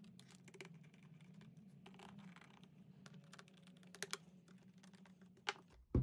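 Small screwdriver tightening the captive retention screws on a Lenovo ThinkPad T14 Gen 2 laptop's base cover: faint scattered clicks and scratches, with a few sharper clicks about four and five and a half seconds in, over a faint steady hum.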